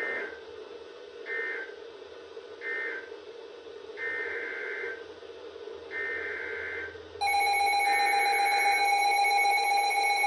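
Emergency Alert System (EAS) SAME header data bursts: six short, buzzy two-pitch digital chirps about a second or so apart, each later burst longer than the first few. About seven seconds in, a loud, steady EAS attention tone begins and the last burst sounds under it, with a faint steady noise in the background throughout.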